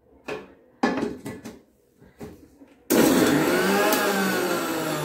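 A few light knocks of handling, then about three seconds in an electric mixer grinder switches on suddenly and runs loud and steady, grinding spinach into paste; its motor pitch rises briefly and then settles a little lower.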